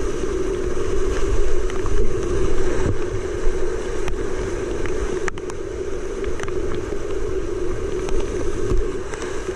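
Steady rush of a creek's whitewater rapids running high, heard from a kayak in the middle of the rapid, with a sharp click about five seconds in.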